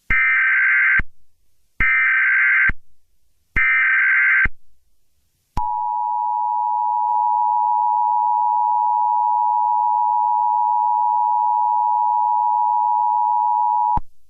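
Emergency Alert System alert signal: three one-second bursts of modem-like SAME header data, then the two-tone EAS attention signal held steadily for about eight seconds before it cuts off sharply.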